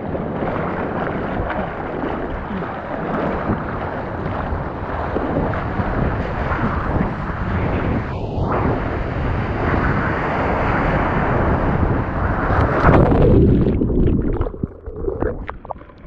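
Seawater rushing and splashing around a surfboard, with wind buffeting the action camera's microphone as the surfer paddles through the surf. The noise swells to its loudest a little over three-quarters of the way through, then falls away into a few scattered splashes and knocks.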